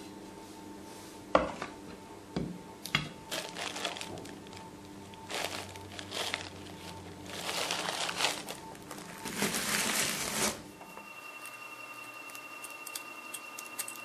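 A few sharp knocks in the first three seconds, then a plastic bag of gravel crinkling and rustling as it is handled, with the stones shifting inside, until it stops abruptly. Soft background music with steady tones plays underneath.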